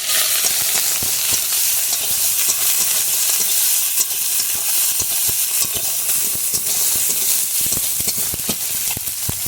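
Tomato, ginger paste and turmeric sizzling in hot oil in a kadai, a steady sizzle broken by scattered clicks of a spatula stirring against the pan.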